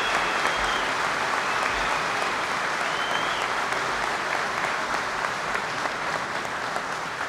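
Large audience applauding, a dense, steady clapping that slowly fades toward the end.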